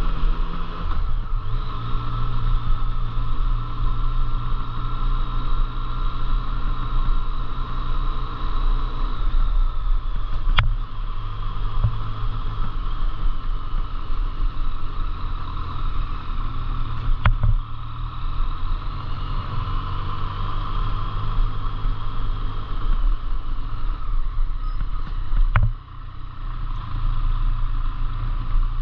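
A motor vehicle running steadily on the move: a continuous low engine drone with road noise, broken by three brief sharp clicks.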